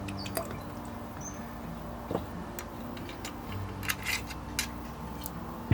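Scattered light clicks and taps of kitchen handling, irregular and a few to the second, over a low steady hum.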